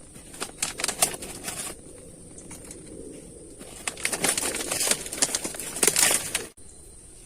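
Tent fabric rustling and flapping as it is handled, in two bursts: one short, then a longer one about four seconds in that cuts off abruptly.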